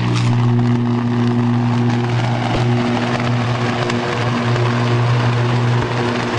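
Electrical arc drawn by a high-voltage switch opening under load: a loud, steady buzzing hum with a dense hiss over it.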